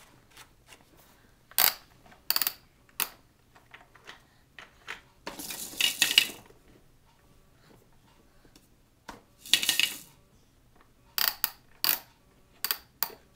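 Hard plastic toy pieces being handled by a toddler: a string of sharp knocks and clacks, with two longer rattling clatters, one about five to six seconds in and one around ten seconds.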